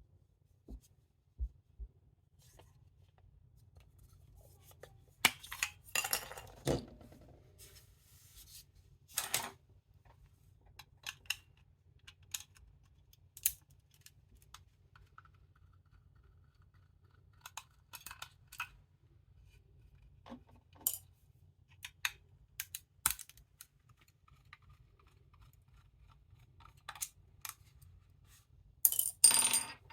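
Scattered clicks, taps and scrapes of small plastic parts and tools being handled while a cheap wireless earphone set is taken apart, with a longer stretch of scraping and rattling about five to seven seconds in and another near the end.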